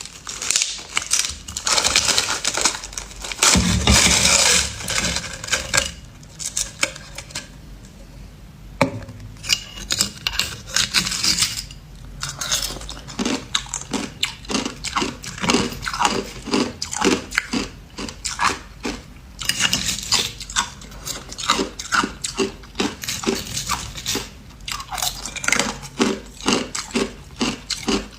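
A person biting and chewing hard ice, with loud crunching. A burst of dense crunching comes first, then a short lull, then steady chewing crunches at about two or three a second.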